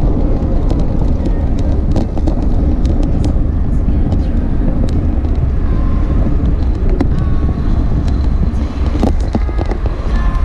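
Wind buffeting the microphone of a camera carried on a moving road bike, a steady low rumble with a few light clicks about nine seconds in.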